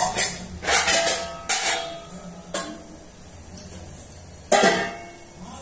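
Metal kitchen vessels and utensils knocking against each other about eight times at irregular intervals, each strike ringing briefly. The clanks are loudest in the first two seconds and again about four and a half seconds in, over a steady low hum.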